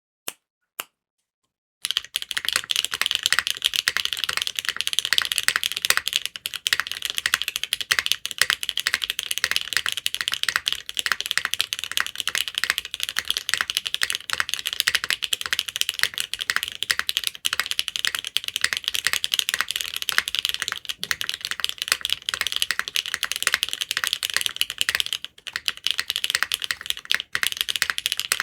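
Typing on a TKD Cycle8 mechanical keyboard with lubed Gateron Milky Yellow Pro linear switches, a polycarbonate plate, gasket-bean mount, no foam and Key Kobo keycaps. A few single keystrokes come first, then fast, continuous typing from about two seconds in.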